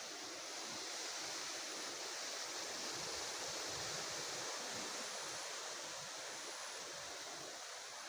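Strong wind rushing through trees and tall crops, a steady hiss of rustling leaves that swells a little in the middle and eases near the end.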